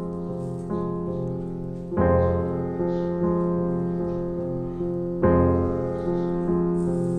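Background piano music: slow chords struck about every three seconds, each left to ring and fade, with lighter single notes between them.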